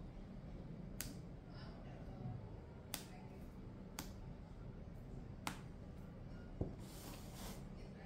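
Faint, sharp clicks, about five spread over several seconds, of a craft-knife blade picking and prying at a rubber foot strip on a laptop's bottom case. Near the end comes a short scraping rasp as the strip comes away.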